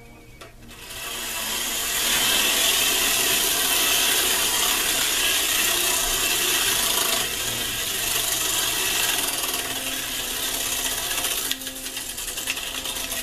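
Clockwork spring motor of a 1930s Marx Dare Devil Flyer tin wind-up airplane whirring as it unwinds, spinning the propeller while the plane circles on its balance bar. It starts about a second in, once the prop stop is released, and turns quieter near the end.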